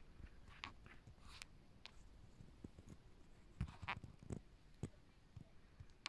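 Faint handling noise: scattered small clicks and knocks, several close together a little past the middle.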